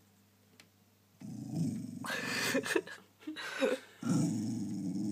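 A pet dog growling low and rough at a postman outside the window: a territorial warning growl. It starts about a second in, grows louder in the middle, breaks off briefly, then carries on as one steady growl.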